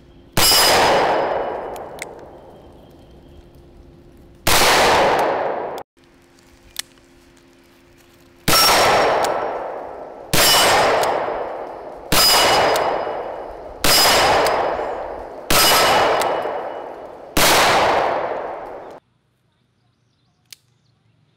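Smith & Wesson Model 610 10mm revolver fired eight times: two shots about four seconds apart, then six in a steady string about two seconds apart, each shot ringing out with a long decay.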